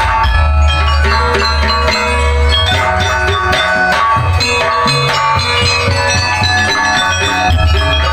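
Loud music played through a large sound system: ringing gamelan-style mallet percussion over kendang drumming and heavy, booming bass, with a change in the bass pattern about four to five seconds in.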